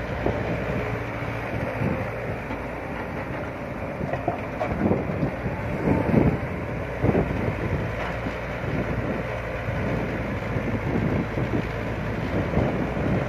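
Caterpillar 312B hydraulic excavator working: its diesel engine runs steadily under load while the boom digs and swings. Several heavy thuds come in the middle and again near the end.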